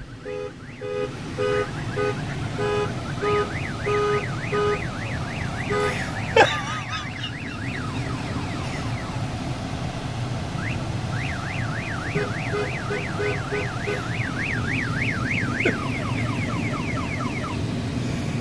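Hidden car alarm siren going off, cycling through its tones: a string of beeps about two a second, then fast rising-and-falling whoops, then beeps and whoops again. It is sounding for no reason, which the owner blames on wiring disturbed while someone was working down under the car.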